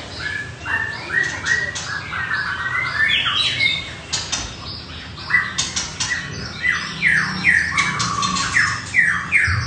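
Caged white-rumped shama singing: a run of short repeated whistled phrases, then from about five seconds in a louder series of quick falling notes, about two a second.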